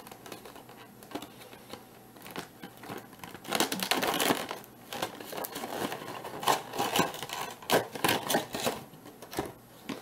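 Packaging crinkling and rustling as it is handled, in irregular crackling bursts that are loudest about four seconds in and again from about six to nine seconds in.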